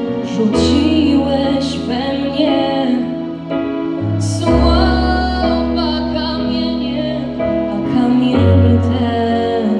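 A girl singing a slow, tender song solo into a handheld microphone over instrumental accompaniment with long held bass notes.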